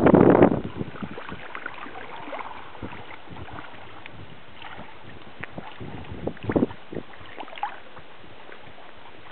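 Wind on the microphone and water sloshing around people wading waist-deep in open bay water. There is a loud noisy burst right at the start and a few short sloshing sounds about six and a half seconds in.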